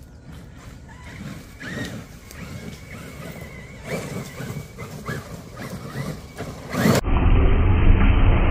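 Traxxas X-Maxx electric RC monster truck driving, its brushless motor giving a few short rising whines. About seven seconds in, the sound cuts to a loud low rumble.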